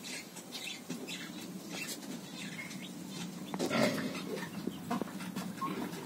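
Birds in a pigeon and poultry shed: scattered short high chirps over a low steady background, with a louder call nearly four seconds in.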